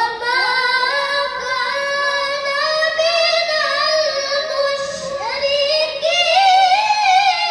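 A girl's voice chanting Quran verses in the melodic tilawah style through a microphone and PA, holding long ornamented notes, then stepping up to a higher held note about six seconds in.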